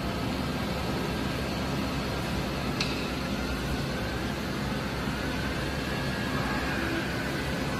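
Hyundai WIA KBN-135 CNC horizontal boring mill running with a steady mechanical hum. A faint whine rises in pitch about halfway through, and there is a single sharp click about three seconds in.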